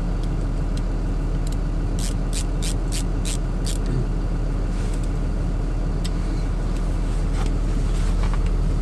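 A ratcheting screwdriver gives a quick run of about six clicks, some two seconds in, as it tightens the cover-plate screw on a ratchet head being put back together. A steady low hum runs underneath.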